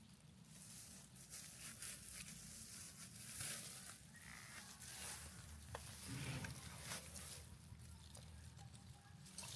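Irregular rustling with scattered light clicks and taps, over a low steady hum.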